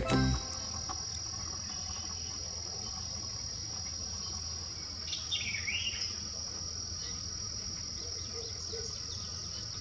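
Insects trilling in one steady, unbroken high tone, with a short call that dips and rises again about five seconds in.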